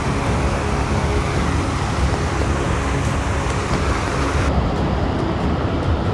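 Mountain stream rushing over rocks, a steady loud rushing noise with a deep rumble; the hiss in the upper range drops away suddenly about four and a half seconds in.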